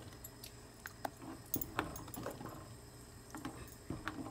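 A spoon stirring a thick coconut-milk and cassava mixture in a steel pot: quiet swishing with scattered light clicks of the spoon against the pot.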